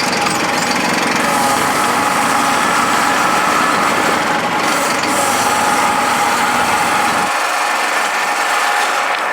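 An engine running steadily. Its low rumble drops away abruptly about seven seconds in.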